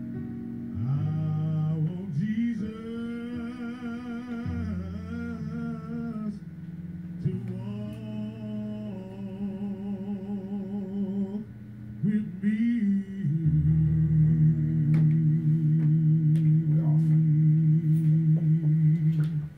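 Music playing: a slow song with long, wavering sung or hummed notes over steady low sustained chords.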